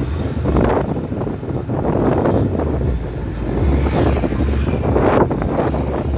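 Wind buffeting the microphone, a loud low rumble with repeated gusty surges, over outdoor street noise.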